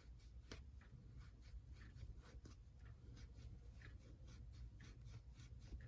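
Faint, quick, irregular scratchy rubbing strokes, a few a second, as a small model locomotive wheel is scrubbed clean.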